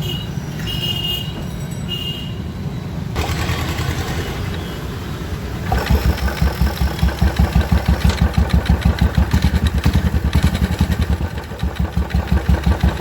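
A steady low running noise, then about six seconds in a Royal Enfield Electra 350 single-cylinder engine runs at idle with an even thump, about five beats a second, its clutch cover off. With the worn sprag-clutch gear taken out, the knocking is gone and only the open primary chain is heard with the engine.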